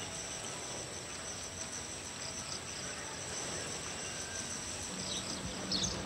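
Rural ambience of steady, high insect buzzing, with a few bird chirps near the end. A low steady hum comes in about five seconds in.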